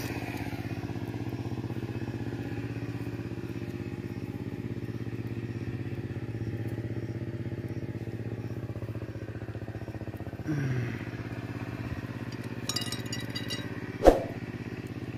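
An engine running steadily, with one sharp knock near the end.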